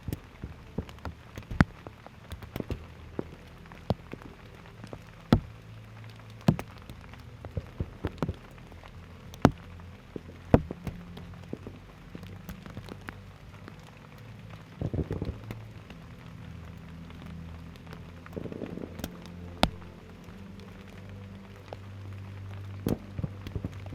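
Aerial fireworks display: scattered sharp bangs and pops of shells bursting at irregular intervals, with short clusters of crackling, over a low steady drone.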